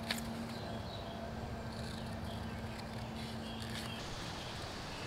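Scissors making faint snips through thin envelope paper, with a small click near the start. Under it is a steady low hum that stops about four seconds in.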